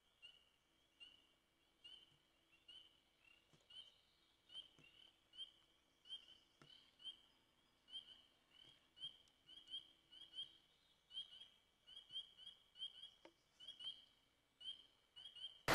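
Faint chorus of spring peepers, short high rising peeps repeated about two a second.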